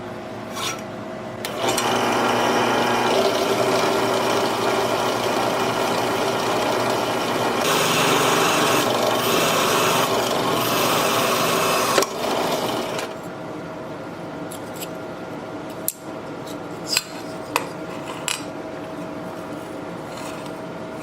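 A power tool grinding metal, a rough rasping over a steady motor hum, for about eleven seconds. The motor then runs on more quietly with a few sharp clicks.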